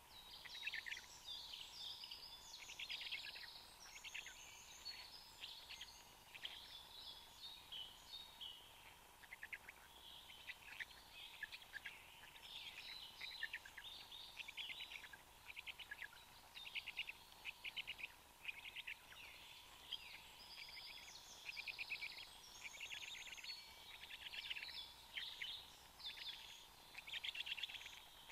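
Songbirds singing in the forest canopy, many short trills and phrases from several birds overlapping without a break. A faint steady tone runs underneath.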